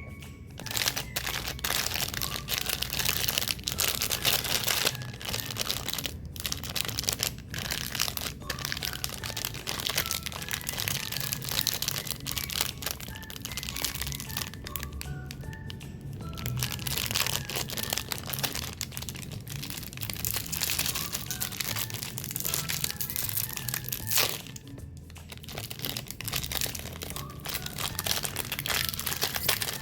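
Close-up crunching and crinkling of crunchy cookies and cakes, a dense steady crackle of small sharp cracks with a few brief pauses, over background music.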